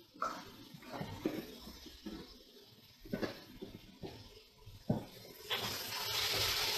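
A few light knocks and clicks, then about five and a half seconds in a steady sizzle takes over: diced onion, celery and carrot sweating in oil in a stainless steel pot.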